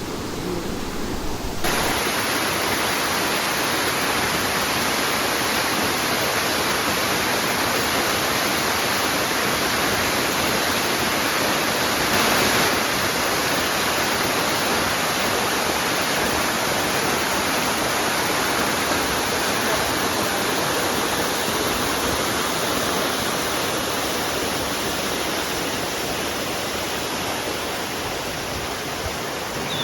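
Waterfall: a steady, even rush of falling water that sets in abruptly about two seconds in.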